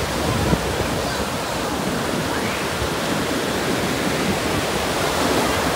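Ocean surf breaking and washing up the beach: a steady rush of surging and fizzing water.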